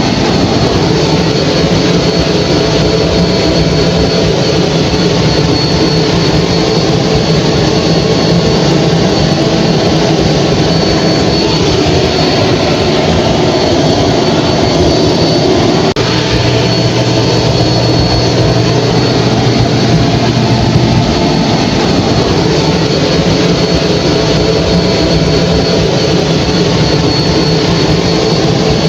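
Hair dryer running steadily: a constant whoosh of blown air over a low motor hum, with a faint high-pitched whine.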